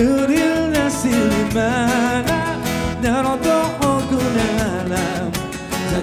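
Band music: a singer holding notes with vibrato over acoustic guitars and electric bass.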